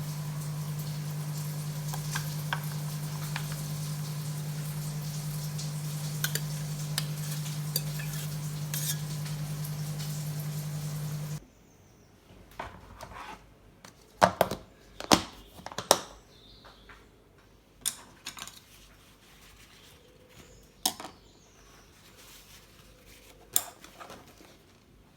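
Food sizzling in a frying pan over a steady low hum, with occasional utensil taps. About eleven seconds in the sound cuts abruptly to a quiet kitchen with scattered clinks and knocks of dishes and cutlery being handled.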